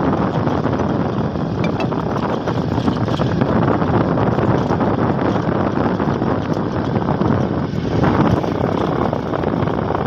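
Steady wind rush and buffeting on the microphone of someone travelling along a road, with the running noise of the vehicle underneath.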